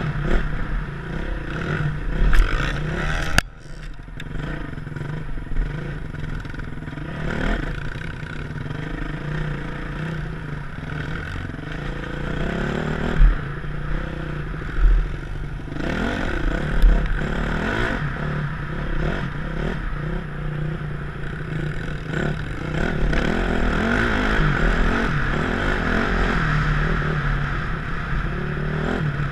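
2007 Yamaha YZ450F four-stroke single-cylinder dirt bike engine revving up and down as it is ridden hard over a motocross track, heard from a helmet-mounted camera with wind rush. A few sharp knocks and clatters come through, the loudest about three seconds in.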